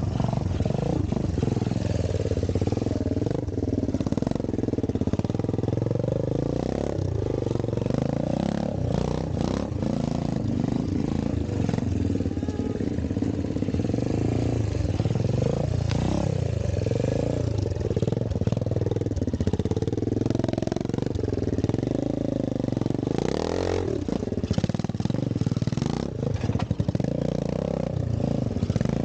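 Vintage trials motorcycle engine revving up and down again and again as the rider works the throttle at low speed, with a few sharp knocks along the way.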